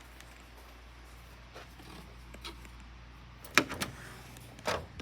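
Door handle and latch clicking: a quick cluster of sharp clicks and a knock, then another click near the end, over a low steady hum.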